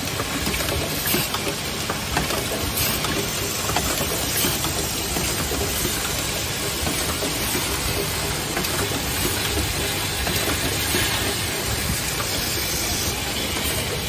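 Automatic hinge assembly machine running: a steady clatter and hiss from its air-driven cylinders and indexing table, with frequent small sharp clicks.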